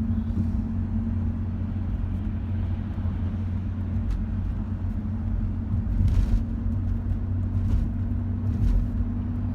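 Steady low road and engine hum of a moving car, heard from inside the cabin, with a couple of brief louder swells in the second half.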